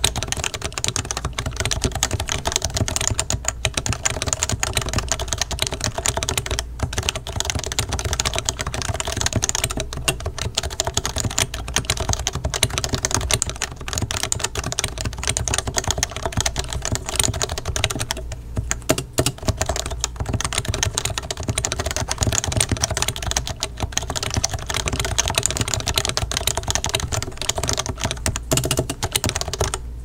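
Continuous typing on a Leopold FC660C keyboard with Topre switches: a dense, steady stream of keystrokes, pausing briefly a couple of times.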